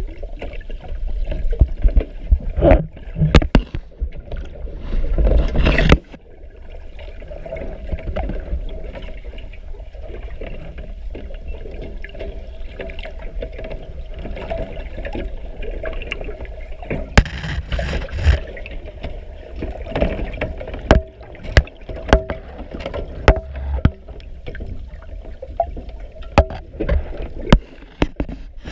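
Underwater water noise as picked up through a camera housing: rushing and bubbling water, loud for the first six seconds, then a steadier wash with a constant low hum and scattered sharp clicks and knocks.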